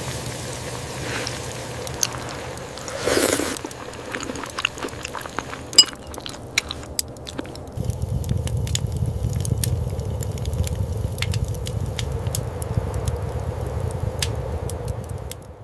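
Close-up eating sounds: chewing with scattered small clicks, likely of utensils on a plate, and a brief louder rustle about three seconds in. A low steady rumble sets in about eight seconds in.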